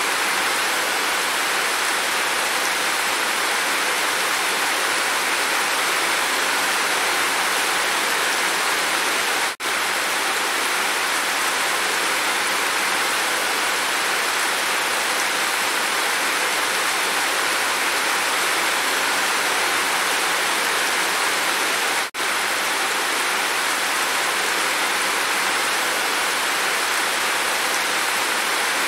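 Heavy rain pouring down in a steady, even hiss, briefly cutting out for a split second twice, about ten and twenty-two seconds in.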